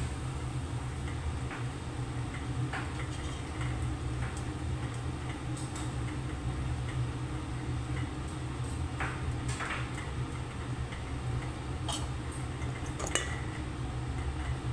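Wire-mesh skimmer clinking against a steel pot and a wok as cooked rice is scooped into the pan: scattered metal clinks, the loudest near the end, over a steady low hum.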